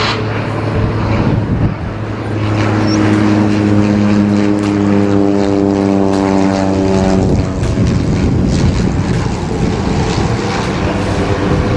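Cessna 208B Grand Caravan's Pratt & Whitney PT6A turboprop and propeller running as the aircraft flies low past on approach: a steady low hum with several clear tones standing out in the middle, which give way to a broad rushing noise in the last few seconds.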